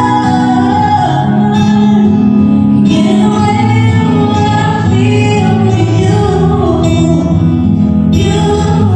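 Zouk dance music: a song with a woman singing over a steady instrumental backing, with sustained, gliding vocal lines.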